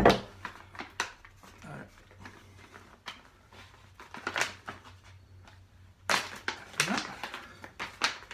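Plastic bag of new suspension bushes being opened and rummaged, with scattered clicks and rustling of the packaging and parts being handled. There is a sharp knock at the start, and the handling grows busier after about six seconds.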